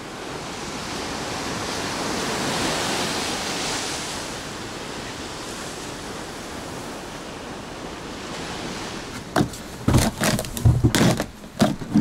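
Sea surf washing against the rocks, a steady rushing that swells and eases. From about nine seconds in, a run of sudden knocks and thumps cuts in.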